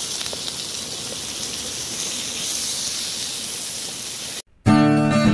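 Sliced onion, tomato and chilies sizzling in hot oil in a pan while being stir-fried with a wooden spatula: a steady frying hiss. About four seconds in it cuts off abruptly, and acoustic guitar music begins.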